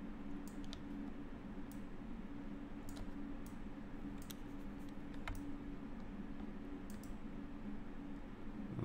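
Irregular light clicks from computer input while drawing, about a dozen spread over several seconds, over a steady low hum.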